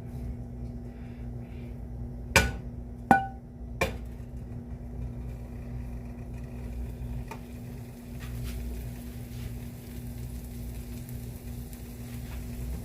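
A metal kitchen utensil clinks sharply against cookware three times, starting a little over two seconds in and spaced under a second apart, over a steady low hum.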